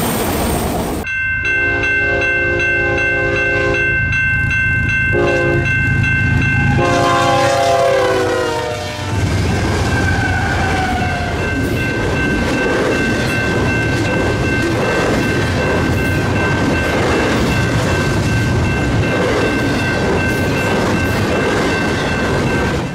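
A freight locomotive's air horn blows several blasts, its pitch dropping as it passes, then the steady rumble and clatter of double-stack intermodal cars rolling by, with a thin high steady tone over them.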